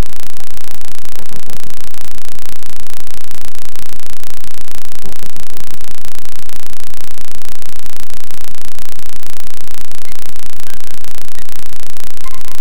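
Loud, steady hiss and crackle of static-like noise across the whole range, with no clear tune or voice in it.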